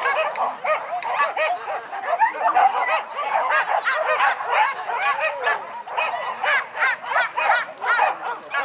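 A pack of boar-hunting dogs yelping in rapid, overlapping short cries, several dogs giving tongue at once, without a break.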